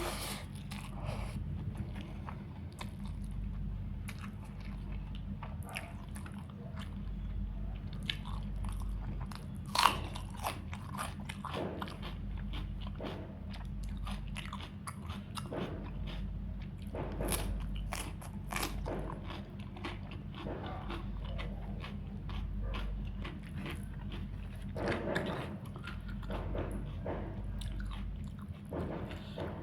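Close-up eating sounds of chicken curry with rice and salad: chewing and biting, with irregular sharp crunching clicks, the loudest about ten seconds in and a cluster near the end. A steady low hum runs underneath.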